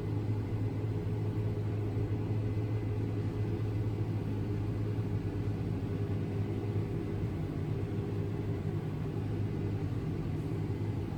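An engine running steadily, with an even low hum.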